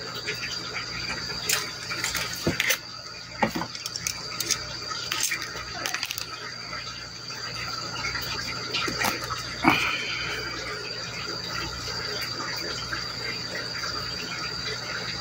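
Metal kitchen tongs clicking and scraping as sliced pork and paper sheets are handled in a foam tray, with irregular sharp clicks, the loudest about ten seconds in. A steady high insect trill runs underneath.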